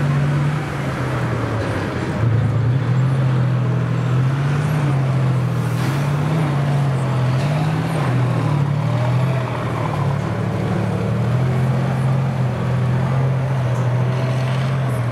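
MT-55 tracked bridge-layer tank driving past, its V-55 V12 diesel engine running loudly with a low drone that rises and falls with the throttle.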